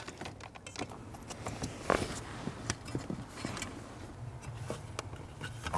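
Wiring harness cables and plastic connectors being handled by hand: scattered light clicks, taps and rustles as the wires are looped and tucked into place, over a faint low hum.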